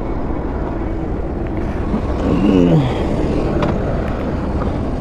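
Motorcycle engine running at low speed with a steady low rumble, and a brief falling-pitched note about halfway through.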